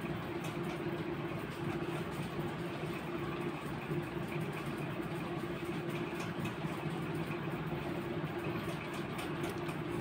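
A steady, even mechanical hum with a low drone, like a motor running, with no change in pitch or level.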